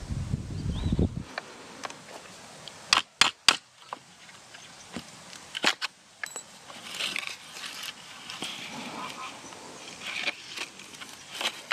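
Wind buffeting the microphone, cut off abruptly about a second in. Then three sharp knocks in quick succession about three seconds in and another near six seconds, followed by scattered light scratchy handling noises.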